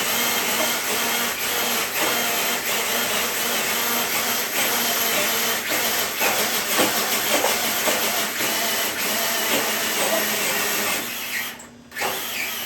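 Electric RC truck motor and drivetrain whining under load while pulling a dead sled, with a steady hiss of dragging and tyre noise underneath. The whine rises and falls with the throttle, then cuts out briefly about 11 seconds in before returning in short spurts.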